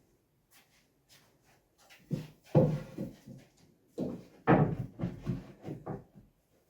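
Knocks and thuds of wooden boards being handled and set down, with a few light clicks at first and the two loudest knocks about two and a half and four and a half seconds in.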